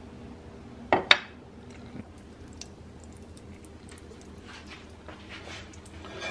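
Butter melting in olive oil in a hot nonstick frying pan, sizzling faintly with scattered small pops. About a second in come two sharp knocks, the loudest sounds.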